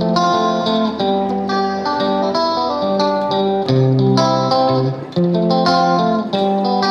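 Background music: a plucked guitar playing a melody of notes, one after another.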